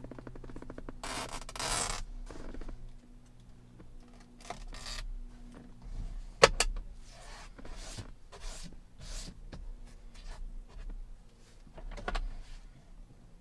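Hook-and-loop (Velcro) handling: a rasping rip about a second in, then scattered scrapes and clicks, with one sharp click about six and a half seconds in that is the loudest sound.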